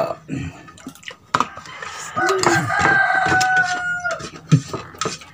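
A rooster crowing once, about two seconds in: one long call that sags slightly in pitch before cutting off. Spoons and forks clink on dishes around it.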